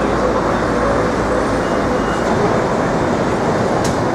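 Steady, dense street traffic noise, a continuous rumble of vehicles, with a brief click just before the end.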